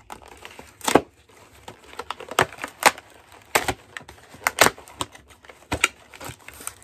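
Plastic doll packaging being handled and worked free, giving a string of irregular sharp clicks and snaps.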